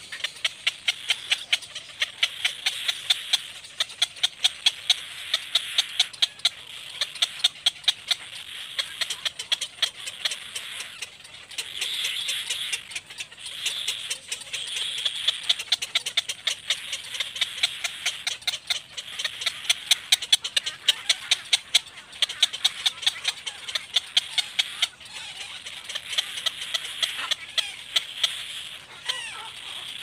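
Cormorant chicks at the nest giving a rattling begging chatter: fast trains of sharp clicks in repeated bursts over a steady hoarse hiss.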